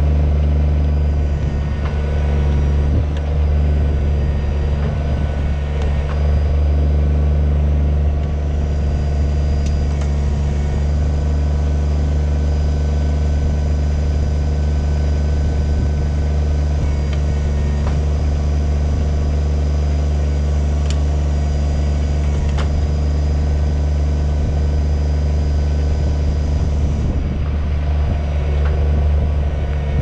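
Kubota BX25 subcompact tractor's three-cylinder diesel engine running steadily while it powers the backhoe digging out a maple stump's root. A few faint clicks come through over the engine.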